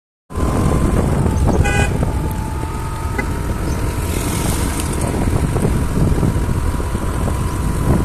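Steady low rumble of a moving road vehicle, with a short horn toot about two seconds in.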